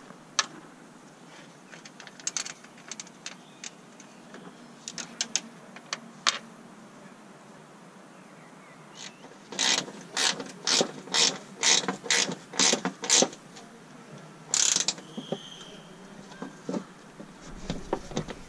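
Ratchet-and-pawl clicking: scattered light clicks, then a regular run of about ten loud ratcheting clicks, two to three a second, past the middle, and one longer rasping burst after it.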